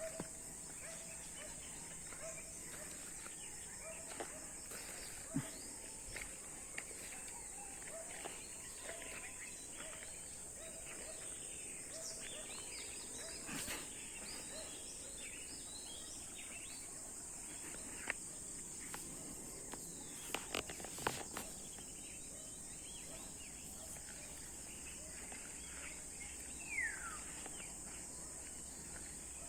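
Steady high-pitched chirring of insects, with a short low call repeating evenly through the first third, scattered small clicks and rustles, and one brief falling whistle near the end.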